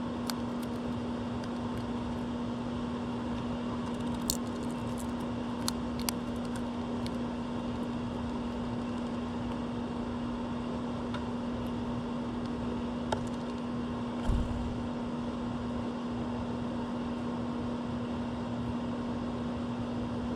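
Steady machine hum with a constant low tone, with a few sharp clicks scattered through it and a short dull thump about fourteen seconds in.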